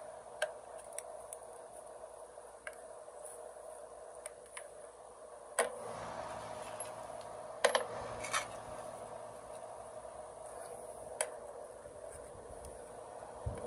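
Scattered small clicks and knocks of terminal hardware being handled as the insulated caps are unscrewed by hand from a welder's terminal board, exposing its brass terminal nuts. A dozen or so light ticks, with two sharper knocks a little past halfway.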